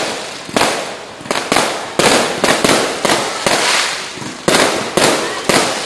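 Aerial firework shells bursting in quick, irregular succession, about ten loud sharp bangs, each trailing off in a fading rumble.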